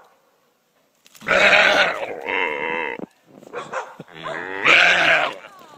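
A doe tangled in wire fencing bleating in distress: two long, loud, wavering bleats about a second apart, each starting harsh.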